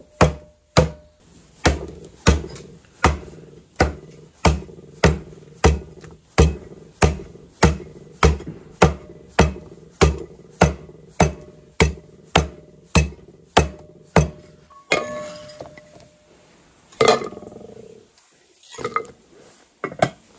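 A cleaver chopping through a whole air-dried fish on a wooden chopping block: steady, sharp chops at a little under two a second. The chopping stops about two-thirds of the way through, followed by a few scattered knocks and clatters.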